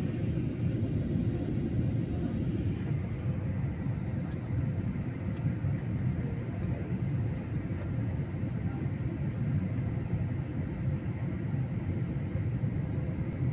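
Steady low rumble inside the cabin of a Boeing 737-800 in flight, its CFM56 jet engines and the airflow heard from a window seat during the descent.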